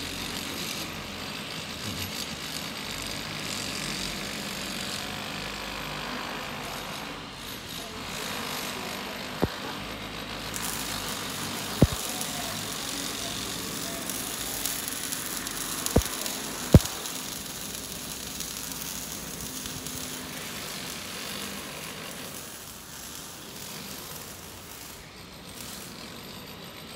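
Steady outdoor background noise over a quiet residential street, with four short sharp clicks, two close together about two thirds of the way in.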